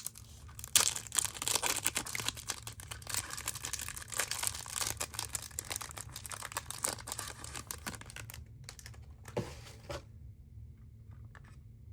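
Packaging being crinkled and torn open by hand, a dense run of crackling that dies down to a few faint rustles near the end.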